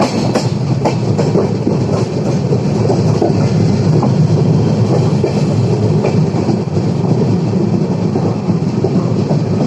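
Passenger train running on the track as it leaves the station: a steady rumble of wheels on rail, with a few sharp clicks just after the start.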